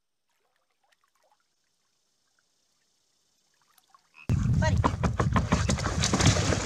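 Near silence for about four seconds, then loud water splashing against a plastic kayak as a dog scrambles aboard, with a low rumble beneath.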